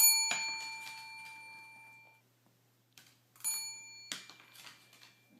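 A small metal bell dinged twice, about three and a half seconds apart, each ding ringing out and fading.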